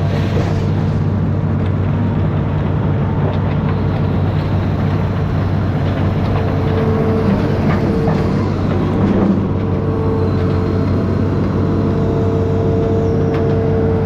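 Amphibious excavator's diesel engine running steadily under work, a constant low drone with a higher whine that drops out and returns, and a few light knocks about two-thirds of the way through.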